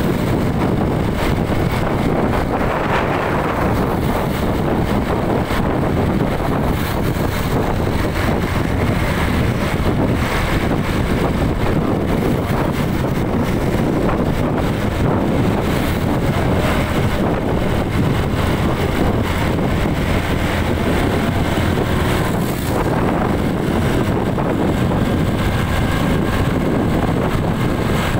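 Steady rush of wind buffeting the microphone over road and engine noise from a vehicle driving in traffic.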